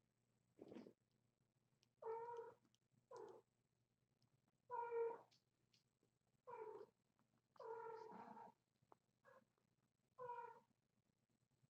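A three-and-a-half-week-old kitten mewing repeatedly: about eight short, high cries spaced a second or so apart.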